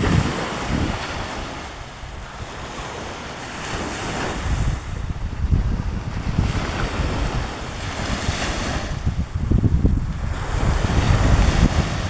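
Small sea waves washing onto a sandy beach, the surf swelling and fading every few seconds, with wind buffeting the microphone.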